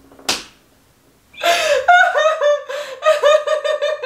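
Two women laughing: a short sharp noise near the start, then from about a second and a half in a long run of quick repeated ha-ha bursts, several a second.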